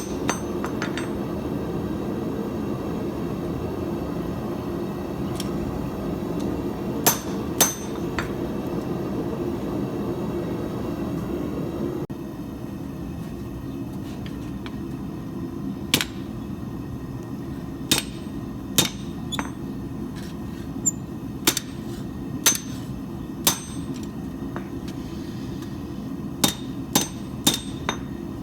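Blacksmith's hammer striking steel on an anvil in scattered, irregular blows, each with a short metallic ring. The blows come singly at first and in quicker runs in the second half. Under them is a steady low roar from the forge.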